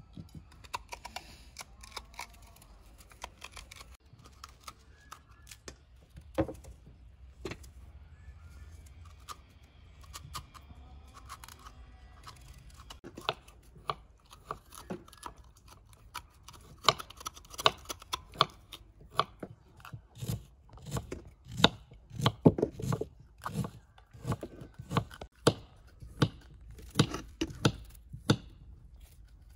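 Knife cutting firm raw quince by hand: a run of crisp cuts and scrapes as the fruit is hollowed and sliced, coming thick and fast in the second half.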